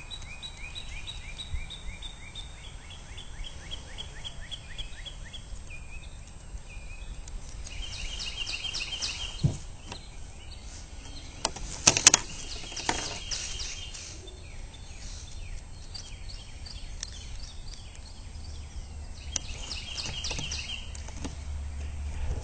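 Birds chirping in the background in repeated runs of short, high notes, with a fast trill near the start. Two sharp clicks come about 9.5 and 12 seconds in, the second the loudest sound here, likely from handling the plastic parts.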